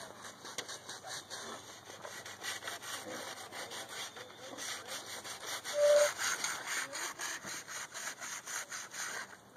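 Steady rhythmic scraping strokes, about three a second, with a short high squeak about six seconds in.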